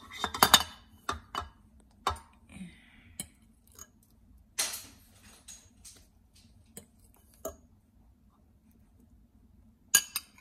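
Clinks and scrapes of a metal fork against a ceramic bowl as softened butter is scraped out into a stainless steel mixer bowl: scattered sharp knocks, loudest in the first second, with a longer scrape about halfway through.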